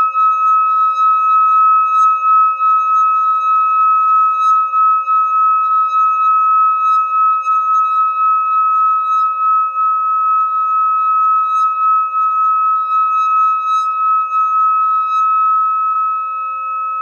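Hand-held brass singing bowl sung by circling a wooden mallet around its rim: one steady ringing tone with fainter tones above and below it, wavering slightly in loudness as the mallet goes round.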